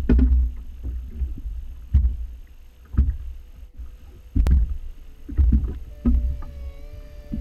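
Irregular heavy thumps and knocks on a fishing boat's deck from an angler moving and stepping about close to the bow-mounted camera, over a low wind and water rumble. A faint steady hum comes in about six seconds in.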